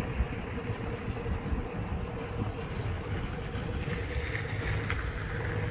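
Wind buffeting the microphone, with a steady low hum underneath.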